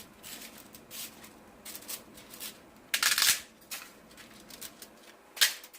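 Kitchen handling noises: scattered rustling and scraping, with a longer, louder scrape about three seconds in and a sharp click near the end.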